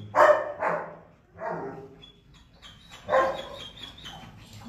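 A dog barking four times: two barks close together at the start, one about a second and a half in, and one about three seconds in.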